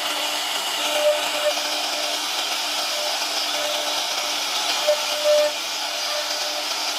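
CNC router spindle running and cutting a 2D design into wood: a steady high hiss with a thin steady hum underneath, and a few short louder pulses about a second in and again around five seconds in.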